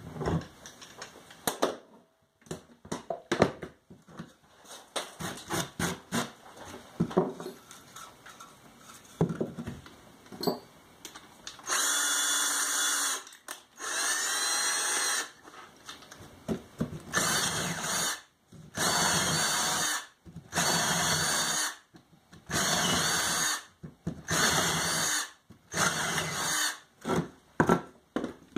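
Handheld power drill run in short bursts of about a second each, about eight times in a row, cutting hardwood plugs. Before the drilling there are light clicks and knocks.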